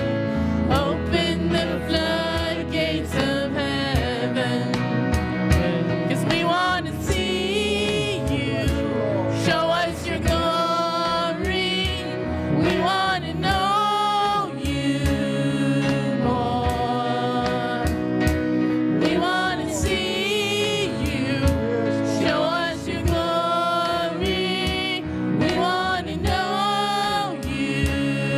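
Gospel worship music: voices singing over a backing band.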